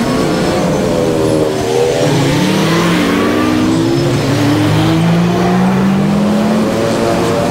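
Road traffic passing close: car and truck engines accelerating away, their note rising steadily over several seconds, over a haze of tyre and engine noise.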